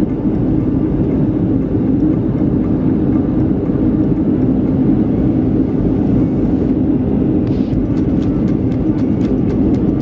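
Jet airliner cabin noise heard from a window seat: the steady drone of the engines and rushing air during the descent, strongest in a low hum.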